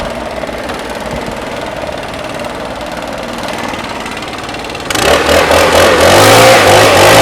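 Two-stroke leaf blower engine idling steadily, then opened up about five seconds in and revving to full throttle, much louder.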